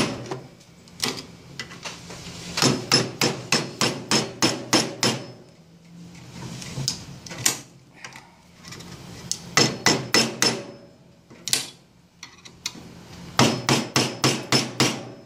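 A hammer striking a flathead screwdriver that is used as a chisel against the glued-in copper field coil of a vacuum cleaner motor held in a vise. The blows come in quick runs of about three or four a second, with short pauses between the runs, and they are beating the glued coil loose from its housing.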